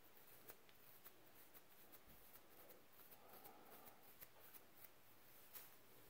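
Faint, irregular scratching of a fine-toothed plastic rattail comb scraping over the scalp, several short scrapes a second, as it loosens flaky buildup.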